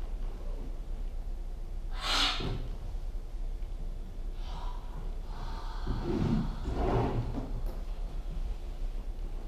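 A person breathing heavily and making wordless vocal noises, with a sharp rush of breath about two seconds in and low voiced sounds around six and seven seconds.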